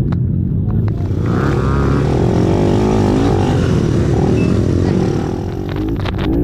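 Several racing ATV engines running and revving, their pitches rising and falling over one another, with a brief easing of the revs near the end.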